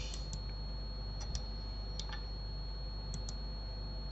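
Light, scattered clicking of a computer mouse and keyboard, about seven clicks, some in quick pairs, over a steady electrical hum with a faint constant high whine.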